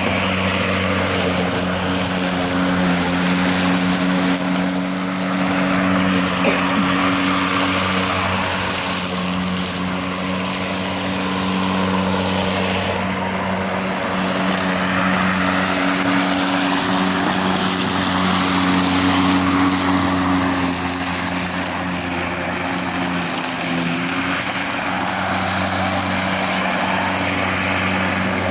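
Greenworks 40V 19-inch cordless electric lawn mower running while mowing grass. Its motor and blade give a steady, even-pitched hum over a constant rushing noise.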